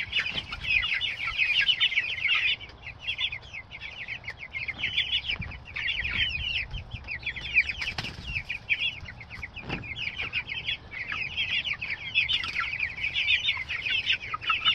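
A flock of young meat chickens peeping all at once: many short, high calls overlapping without a break.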